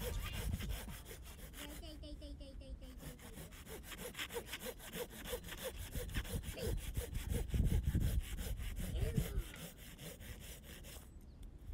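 Small hand saw cutting a scrap block of lumber in steady back-and-forth strokes, an even rhythm of rasping saw strokes.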